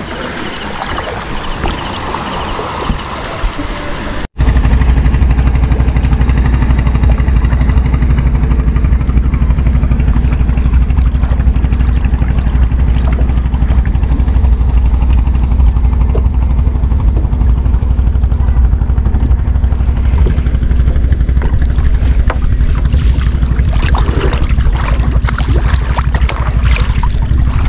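For the first few seconds there is quieter water and handling noise. Then the sound cuts off abruptly and a small boat's engine runs loud and steady at an even speed for the rest of the time.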